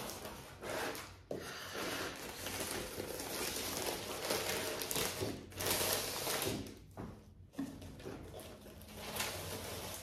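Packing paper rustling as it is pulled back and lifted out of a cardboard box by hand, in uneven stretches.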